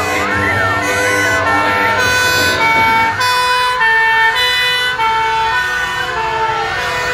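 Several fire engine sirens sounding at once: a fast-sweeping wail at first, then two-tone hi-lo horns stepping between two notes. Near the end a slow siren glides down and starts rising again.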